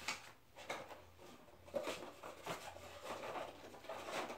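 Soft handling noises: a cardboard box and paper being picked up and moved on a table, with scattered light clicks and rustles.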